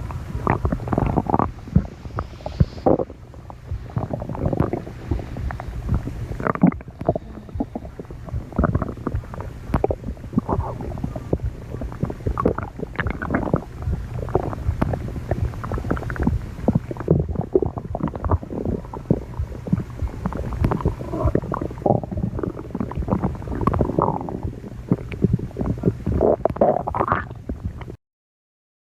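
A person's stomach growling and gurgling: a continuous, irregular run of bubbling gurgles and low rumbles over a steady low hum. It cuts off suddenly near the end.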